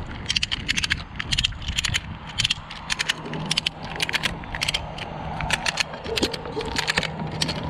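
Ratchet strap being cranked tight around a split tree trunk: the pawl clicks in quick clusters stroke after stroke, over the steady low hum of the bucket truck's idling engine.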